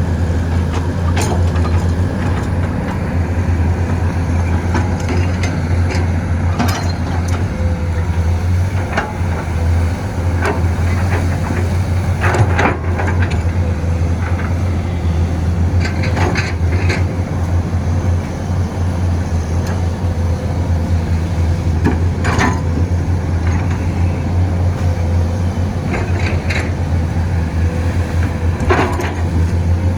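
Excavator's diesel engine running steadily under load, with short metallic clanks scattered through at irregular intervals.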